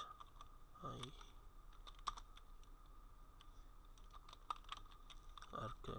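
Computer keyboard typing: scattered, irregular key clicks as a command line is typed and corrected.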